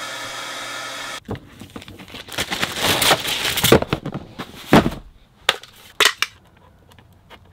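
A shop vacuum runs with a steady whine for about a second. It stops abruptly, and then comes a run of sharp knocks and rustling as tools and a cardboard-boxed heat gun are handled and set down on a wooden workbench.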